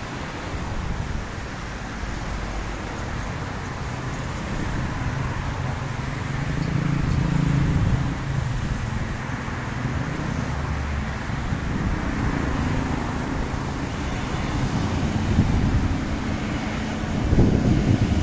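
Steady traffic on a rain-wet multi-lane road: car engines and tyres running on the wet pavement. It grows louder near the end as a metro train comes along the tracks beside the road.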